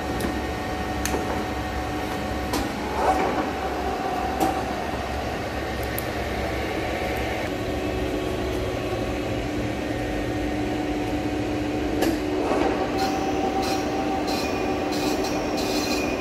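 Big LZMT CW6280D engine lathe running with a steady hum as it turns a large steel tube at about 80 rpm, with two brief knocks, about 3 and 12 seconds in. From about 13 seconds an SNMG carbide insert starts cutting the tube's outside, adding an intermittent high-pitched scraping.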